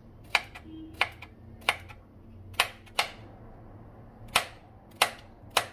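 Kitchen knife slicing through a zucchini and striking a wooden chopping board: about eight sharp knocks at an uneven pace.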